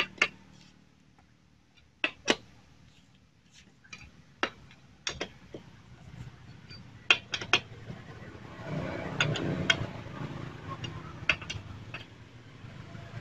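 Scattered sharp metallic clicks and clinks of a T-handle wrench working the bolts that join the crankcase halves of a Yamaha Jupiter Z engine as they are tightened down, with a stretch of handling rustle past the middle.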